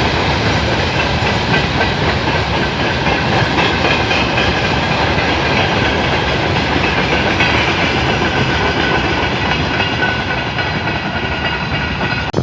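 Passenger train passing close by: a loud, steady rush of wheels on rail, with faint high ringing tones over the top.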